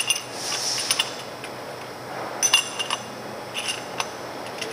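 Steel brake-pad backing plates clinking as they are set one by one into the cavities of a steel brake-pad mould: a series of sharp metallic clinks that ring briefly, several in quick succession about halfway through, with a short hiss near the start.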